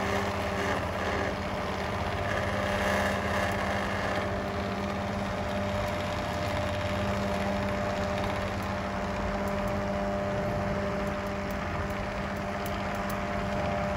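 MISCREEN digital screen maker running as it burns a thermal screen: a steady machine hum with a low and a higher held tone. There is a little extra higher-pitched noise in the first few seconds.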